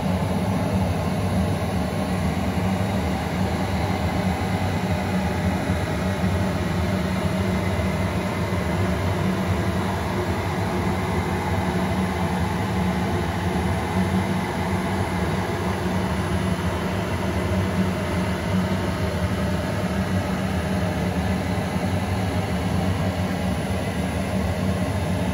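Okamoto surface grinder running steadily with a low drone, as the chuck is swept under a dial test indicator.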